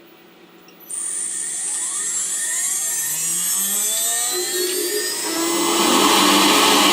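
CNC router spindle starting up about a second in, its high whine rising in pitch over several seconds as it spins up to speed, louder toward the end.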